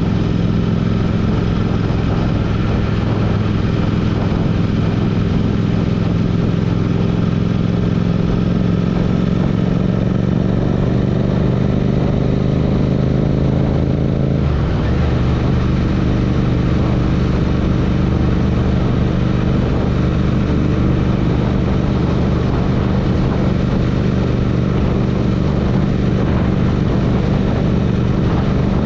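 Royal Enfield Interceptor motorcycle's parallel-twin engine running. Its pitch rises slowly for about half the time, drops abruptly about halfway through, then holds steady.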